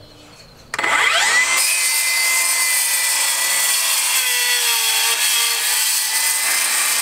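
Small cordless circular saw starting about a second in, its motor whining up to speed, then cutting steadily through a wooden wall stud.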